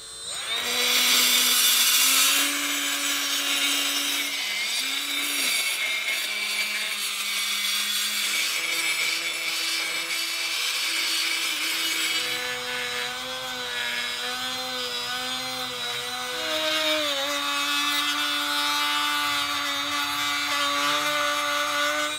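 Cordless die grinder running at high speed while porting the intake port edge of a cast-iron Mazda 13B rotary side housing, grinding metal away. Its steady whine dips and climbs in pitch every few seconds as the bit loads up and frees off, over a hiss of abrasion that is heaviest in the first couple of seconds.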